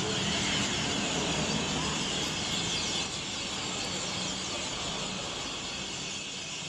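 A large flock of birds gathering to roost in the evening, many calling at once in a dense, continuous high chatter. A low engine hum runs under it for the first few seconds and then fades.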